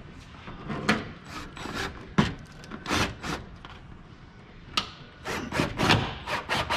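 Scraping and rubbing of a hand tool against the lower engine cowling while the screw holes are lined up and a Cleco is set. It comes as a string of short, scratchy strokes with a few sharp clicks among them.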